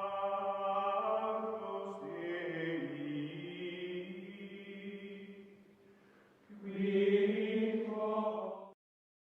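Closing music of long held chant-like tones. It fades out about six seconds in, swells again on a second held chord and cuts off suddenly near the end.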